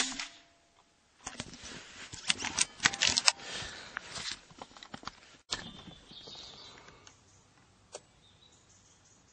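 A silenced .22 air rifle fires once at the very start: a sharp, short crack that dies away quickly. About a second later comes a long run of clattering clicks and rustling, the rifle being handled, then a single click near the end.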